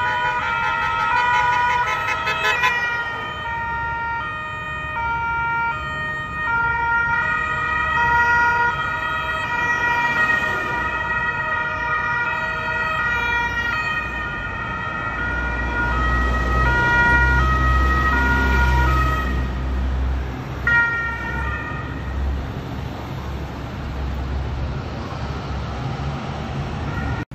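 Two-tone hi-lo sirens of a Carabinieri escort convoy passing at speed, several sirens overlapping in stepping high and low notes. A heavy truck engine rumbles past in the middle, and the sirens die away near the end, leaving traffic noise.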